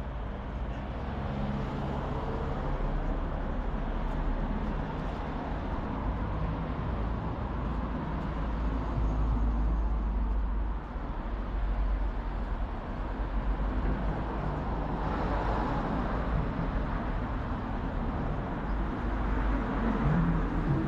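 Town street traffic: cars driving along the road, with a steady low rumble and a brief swell of louder car noise about fifteen seconds in.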